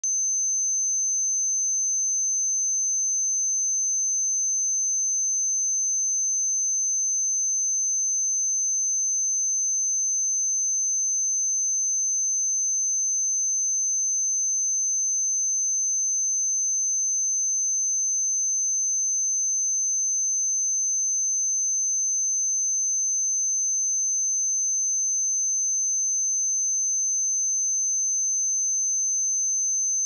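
A pure 6196 Hz sine test tone, one steady high-pitched whistle held at constant pitch and level.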